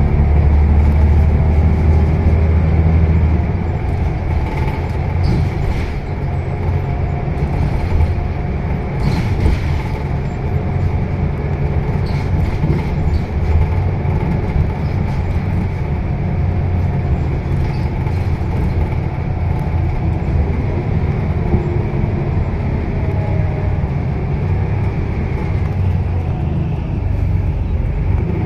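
Scania L94UB city bus heard from inside the passenger cabin while under way: a steady low engine and drivetrain rumble mixed with road noise, louder for the first three seconds or so before settling.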